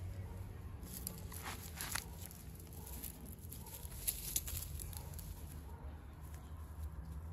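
Soft, irregular rustling and a couple of light clicks, loudest from about a second in to about five seconds, over a steady low outdoor rumble.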